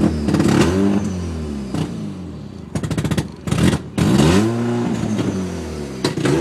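Mazda RX-7 FC's 13B rotary engine running after a cold start, revved up and let fall back three times, with a stretch of rapid crackling in the exhaust between the revs.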